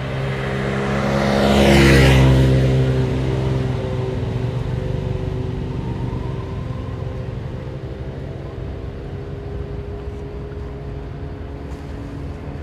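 A motor vehicle passing on the road, loudest about two seconds in, its engine hum then fading slowly away.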